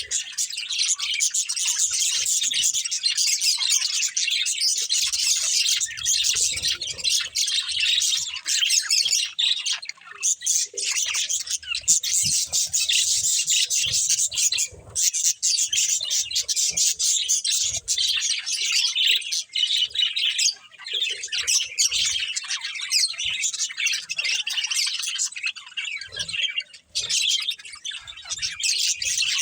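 Budgerigars chirping and chattering nonstop, many high, quick calls overlapping with the odd squawk.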